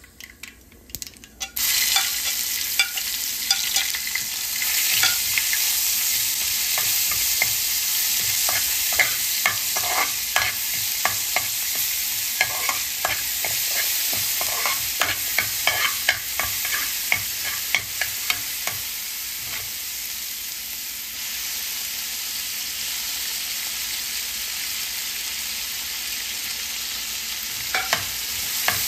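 Oil sizzling in a nonstick frying pan as ginger-garlic paste is stirred in, with a spatula scraping and clicking against the pan. The sizzle starts suddenly about a second and a half in and runs steadily, with frequent clicks from the stirring.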